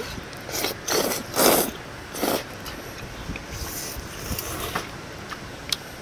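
People eating a broth dish: a handful of short, noisy mouth sounds in the first two and a half seconds, fainter ones after, and a single sharp click near the end.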